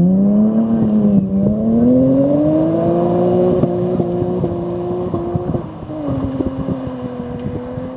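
BMW 3 Series rally car accelerating hard away on gravel. The engine revs climb with a brief shift about a second in, then drop at another gear change about five and a half seconds in, and the sound fades as the car draws off.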